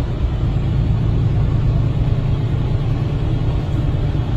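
Steady low rumble of a motor vehicle running, engine and road noise with no sudden events.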